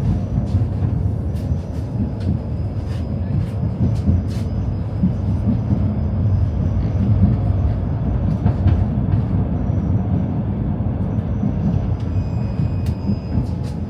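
Tram running along its rails, heard from inside the car: a steady low rumble of wheels on track with scattered sharp clicks and knocks.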